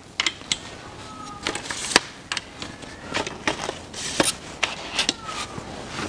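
Irregular light clicks and taps with some rustling: close handling noise while working under a car. The two sharpest clicks come about two seconds and about four seconds in.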